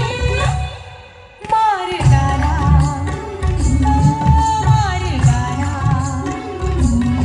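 Music: a sung melody over a steady drum beat, which drops away about a second in and starts again half a second later.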